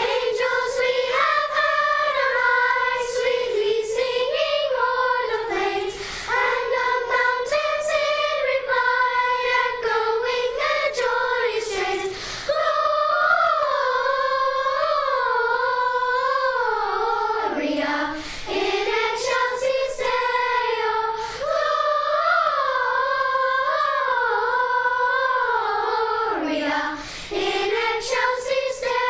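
Youth choir of high children's voices singing a holiday song, holding long notes with vibrato and pausing briefly between phrases.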